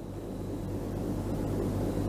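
Steady low hum and hiss, rising in level over the first second and then holding steady: the background noise of a recording.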